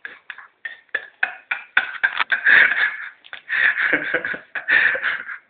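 A man snoring loudly, like a pig: a quick run of short, rough snores, then three longer snores about a second apart.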